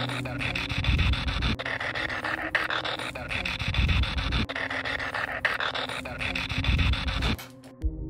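Spirit-box static from a ghost-hunting phone app: a steady hiss laced with fast clicks, swelling into a breathy whoosh about every three seconds, cutting off sharply near the end.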